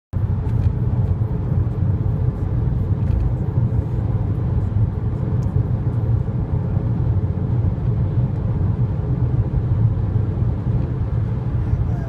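A car driving at highway speed, heard from inside the cabin: a steady low rumble of tyres and engine.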